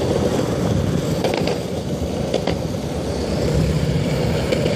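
Skateboard wheels rolling over a cracked concrete street: a steady low rumble with a few sharp clicks.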